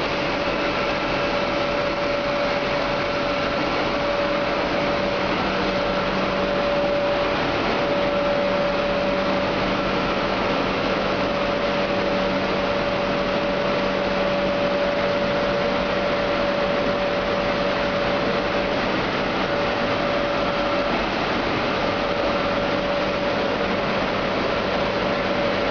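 Sawdust drying line running: blower fan and electric motors give a steady machine noise with a constant mid-pitched whine and a low hum, unchanging throughout.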